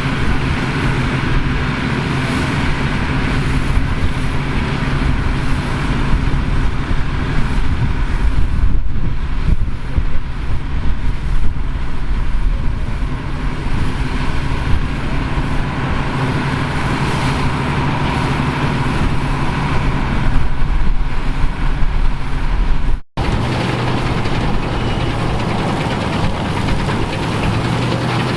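Engines of vintage farm machinery running steadily, with a low, even drone. It drops out for an instant about three quarters of the way through, then carries on at a slightly different pitch.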